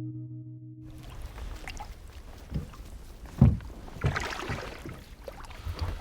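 A held guitar chord cuts off about a second in, then a steady outdoor hiss with a few dull knocks and thumps, the loudest a sharp knock about halfway through.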